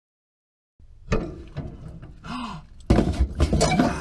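A thunk about a second in, then wordless sounds: a short rising-and-falling vocal tone and a louder rough rustling stretch near the end.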